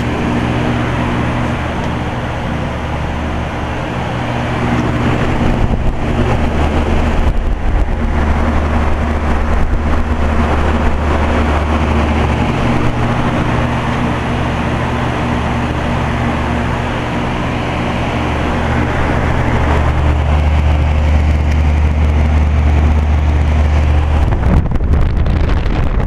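Outdoor unit of a 2011 Aire-Flo 13 SEER heat pump running in heat mode just after start-up. The compressor gives a steady low hum, and the condenser fan adds a rushing of air.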